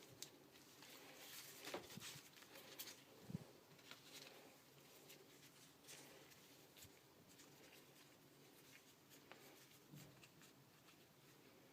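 Near silence with faint, scattered clicks and taps from small angle grinder parts being handled during reassembly.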